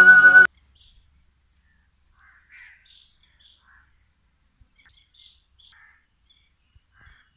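Flute music cuts off abruptly about half a second in, followed by faint, scattered bird calls, short chirps every second or so.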